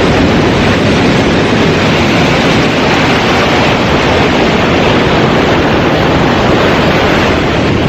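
Ocean surf washing in around someone standing in the shallows, with wind buffeting the microphone: a loud, steady rush.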